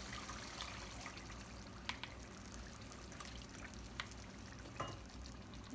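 Coconut milk pouring from a plastic bowl into a pan of fish curry, scraped out with a spatula. It is faint, with three light clicks from the spatula against the bowl.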